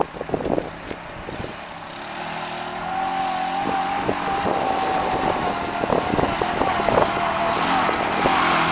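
Off-road utility vehicle's engine approaching on a dirt trail, growing steadily louder, with a steady whine over the engine hum. There are a few sharp knocks in the first second or so.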